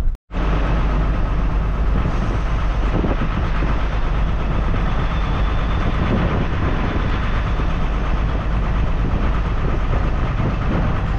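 A truck on the move: steady engine and road rumble with no letup, heaviest in the low end.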